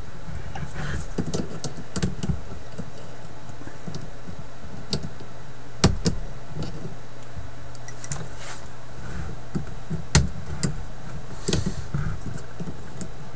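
Small irregular clicks and taps of hands handling wires and a diode in a record player's chassis, with two sharper clicks about six and ten seconds in, over a steady low hum.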